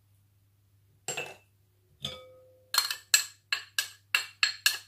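A metal spoon clinks against bowls: one knock, then a ringing clink, then a quick run of about eight taps, roughly three a second. The spoon is knocking minced garlic out of a small ceramic bowl into a glass mixing bowl.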